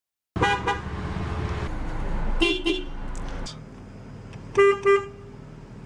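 Car horn tooted in short quick pairs, three times over, the last pair the loudest. A low rumble runs underneath during the first half.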